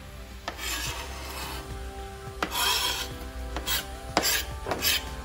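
Kitchen knife blade scraping finely chopped garlic, green chilli and ginger off a plastic cutting board into a pan: several scraping strokes, the loudest about two and a half seconds in, then shorter quick scrapes near the end.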